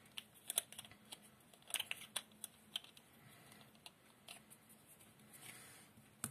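Faint, scattered clicks and taps of plastic hand-cream tubes being picked up, handled and set down on a tabletop.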